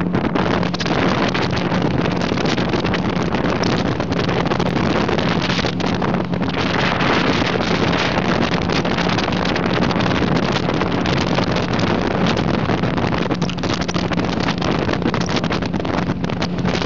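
Rigid inflatable boat running fast at sea: the motor's steady hum under heavy wind buffeting on the microphone, with the hull pounding and spray hissing against the waves.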